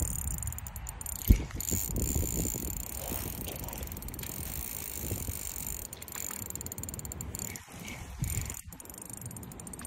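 Ultralight fishing reel whirring and clicking as its drag and gears work against a hooked grass carp pulling on the line. A single sharp thump about a second in.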